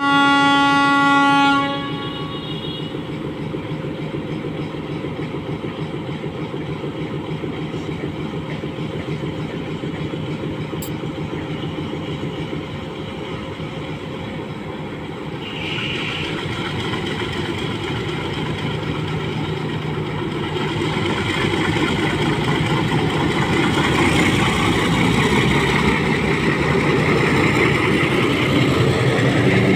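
Bangladesh Railway ALCO diesel locomotive sounds its horn once, a blast of under two seconds, as it departs with a passenger train. Its engine then runs steadily as it pulls away, growing louder as it throttles up and passes close by, with wheels rolling on the rails.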